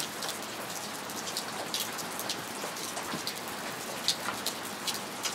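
Steady rain falling, with many small, irregular drop taps scattered through it.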